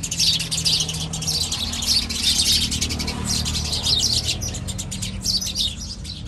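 Many small birds chirping rapidly and continuously in a dense chorus, with a low steady hum underneath.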